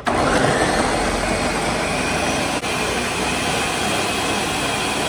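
Countertop blender switching on sharply and running at high speed, puréeing tomatillos, serrano chiles, onion and garlic with water into a green salsa; the motor noise is steady apart from one brief dip about halfway.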